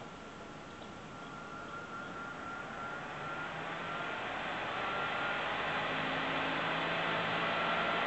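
Blower-style cooling fan of an EVGA GTX 970 graphics card spinning up from idle: a whirring rush with a whine that rises in pitch and grows steadily louder.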